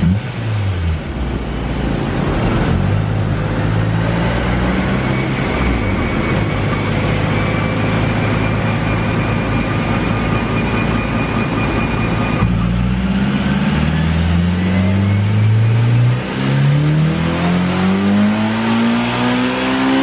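Turbocharged Honda S2000 four-cylinder at full throttle on a dyno pull, its exhaust running through a high-flow catalytic converter. The engine note drops back sharply twice, about 12 and 16 seconds in, as it shifts up, climbing in pitch after each drop.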